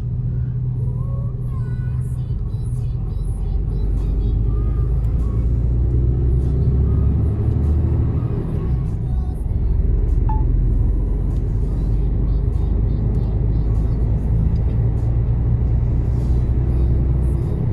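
Mercedes-Benz Actros truck's diesel engine running steadily, a low drone heard from inside the cab.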